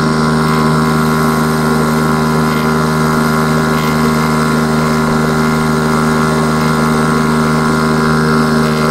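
A boat's outboard motor runs steadily at a constant speed, loud and close, as heard from aboard the moving boat.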